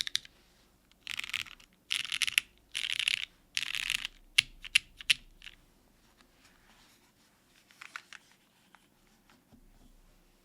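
Mechanical keyboard with lubed Cherry MX Black linear switches on an aluminum plate and GMK keycaps being typed on: four fast bursts of keystrokes, then a few single key presses, then it stops. Faint knocks come about eight seconds in as the board is turned over.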